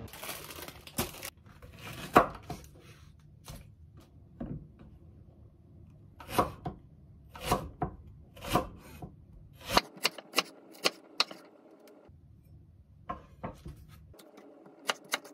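Kitchen knife chopping green onion on a wooden cutting board: a string of sharp knocks at uneven spacing, some in quick runs of three or four.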